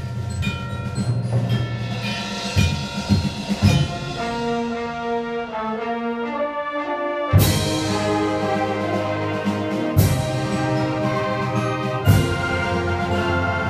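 High school symphonic band playing: brass, woodwinds and percussion holding sustained chords. About four seconds in the band thins to a quieter passage of held notes, then comes back in full with a loud percussion hit, followed by two more accented hits a couple of seconds apart.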